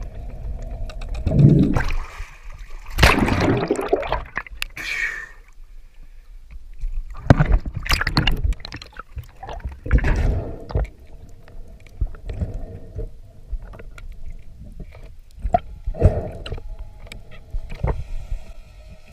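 Water sloshing and gurgling around an underwater camera housing, coming and going in uneven surges.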